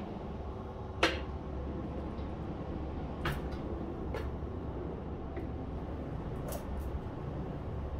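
Drink cans and bottles set down one at a time on a table: about six short knocks and clinks, spaced irregularly, over a steady low background hum.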